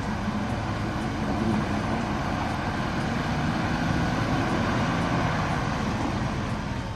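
Off-road vehicle engine running steadily.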